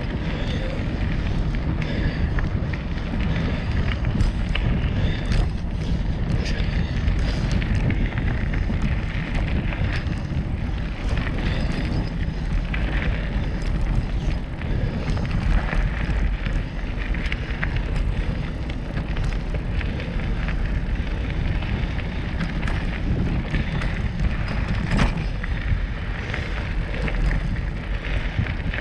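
Mountain bike ridden along a dirt singletrack: steady wind buffeting on the microphone with tyres rolling over dirt, and scattered knocks and rattles from the bike over bumps.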